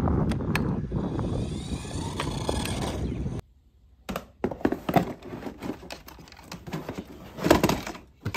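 Wind rumbling on the microphone for about three and a half seconds. It cuts off suddenly and gives way to a remote-control toy bus and its box being handled: scattered plastic and cardboard clicks, knocks and rustles, loudest near the end.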